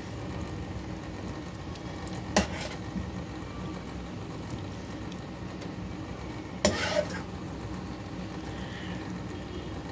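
A metal serving spoon knocking against a plate or pot twice as food is dished out: a single clink about two seconds in, and a longer clatter near seven seconds, over a steady low background hum.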